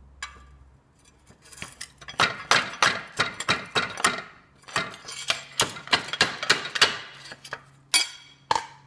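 Quick, irregular metallic clinking and knocking, several strikes a second for about five seconds, followed by two sharper knocks near the end.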